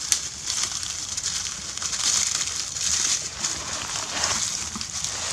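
Dry leaf litter crackling and rustling under a macaque's hands and feet as it walks and forages, a continuous run of small crackles.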